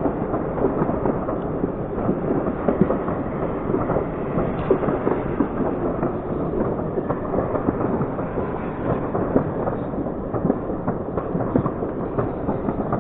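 Fireworks crackling continuously, a dense unbroken stream of small pops and cracks.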